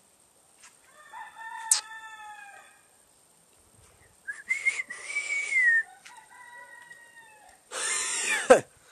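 Rooster crowing, four crows in turn, each lasting a second or more. The last one, near the end, is harsher and drops steeply in pitch.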